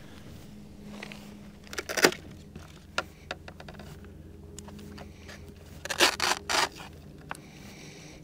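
Close-up handling noise from the landed foam FPV plane and its battery: scattered sharp clicks and scrapes, the loudest about two seconds in and a quick cluster around six seconds in, over a faint steady low hum.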